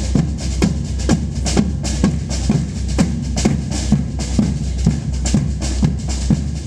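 Music with a steady, driving beat and deep bass, about three strikes a second.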